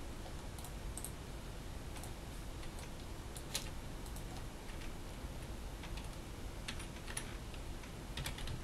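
Computer keyboard keys typed in sparse, irregular clicks, a name being typed in, over a steady low hum.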